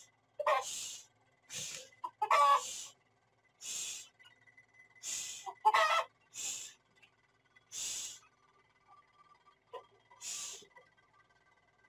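Pahari desi chickens clucking, with a few louder squawks, among short breathy hisses that repeat about once a second.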